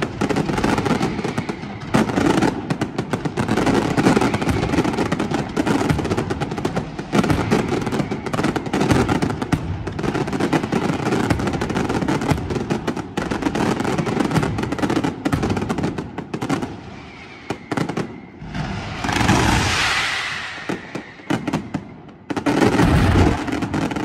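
Fireworks display: a rapid, near-continuous barrage of bangs and crackling, like machine-gun fire. It thins out about two-thirds of the way through, then a last loud volley of bangs comes near the end.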